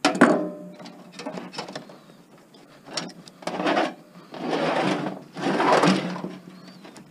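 Metal computer parts being handled and pried apart: a sharp clank that rings briefly at the start, a few light clicks, then three rasping noisy bursts of under a second each.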